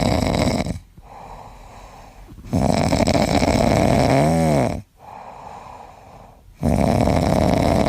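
A sleeping pet snoring loudly in a slow, even rhythm: three long rasping breaths, each about two seconds, with quieter breaths between. The second snore carries a brief wavering squeal partway through.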